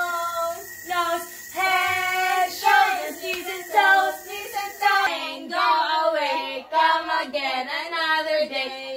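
A small girl and women singing a children's song together, with held, gliding sung notes. The background noise changes abruptly about five seconds in, where the recording cuts to another room.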